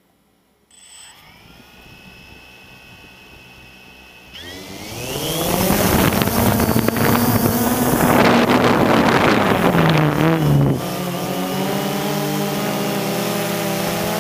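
Quadcopter drone's electric motors and propellers, heard from a camera mounted on the drone: they spin up on the ground with a faint whine under a second in, then rise in pitch and get much louder about four seconds in as it lifts off and climbs, with a rushing wash of noise. About eleven seconds in it settles into a steadier multi-tone hum in flight.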